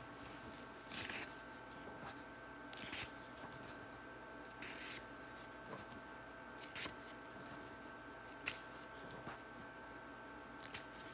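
Pages of a large book being turned by hand: about five short papery rustles, spaced a second or two apart, over a faint steady hum.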